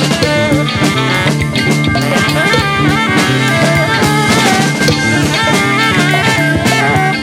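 Instrumental psychedelic rock: a band with drum kit and electric guitar playing a steady groove over a repeating bass line.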